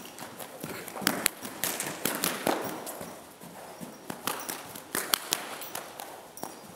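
Hoofbeats of a young warmblood mare trotting loose on the sand footing of an indoor riding arena: an irregular run of soft thuds and sharp clicks.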